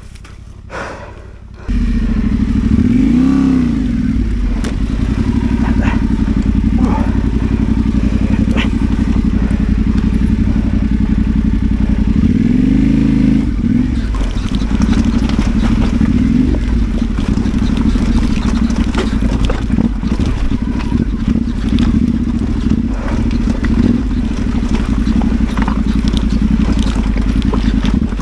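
Adventure motorcycle's parallel-twin engine running, coming in abruptly about two seconds in and revved up and down twice, with scattered knocks and rattles from the bike.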